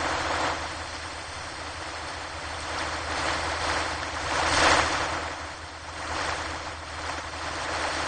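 Ocean waves breaking on a shore, a continuous wash of surf that swells and ebbs, with one louder wave breaking a little over four and a half seconds in.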